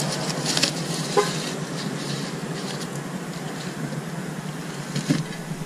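Rustling and light scraping as an alloy wheel is slid out of its cloth wheel bag and cardboard box, with a few short rustles in the first second or so and again near the end, over a steady low rumble.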